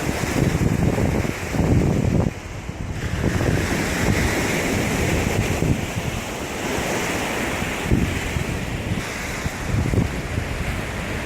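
Sea surf washing on the shore, with wind gusting on the microphone as a rumble that comes and goes.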